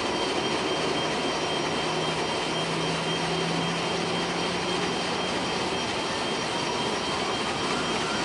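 Steady cockpit noise of an Airbus A340-300 with its CFM56 jet engines running, a thin high whine held throughout. A faint rising whine comes in near the end.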